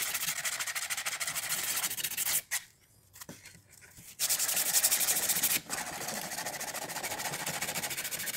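Sandpaper rubbed by hand on the weathered wood of an old lantern, a fast, even scratching of quick back-and-forth strokes. It stops for nearly two seconds about two and a half seconds in, then starts again and runs on a little softer.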